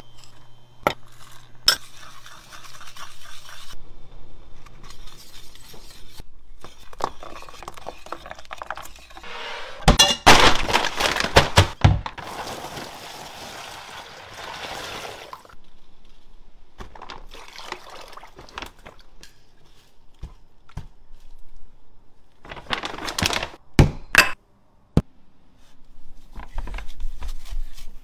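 Kitchen food-prep sounds: glass bowls clinking against a steel pot as ingredients are tipped in, then water pouring for several seconds into a plastic container. Several sharp knocks follow, and a plastic bag rustles near the end.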